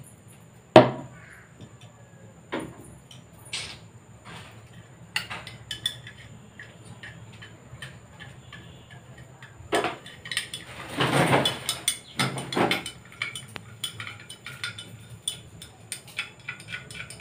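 A metal spoon stirring a drink in a glass tumbler, clinking against the glass in quick small ticks, with a sharp knock about a second in and a brief clatter a little past the middle.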